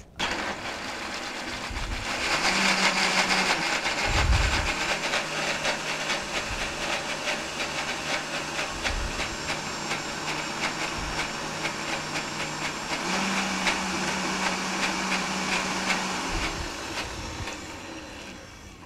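Countertop blender motor running, blending tofu, mint leaves, panela and a little water into a smooth cream: a steady whirring with a low hum that starts right away, gets louder about two seconds in, and winds down near the end.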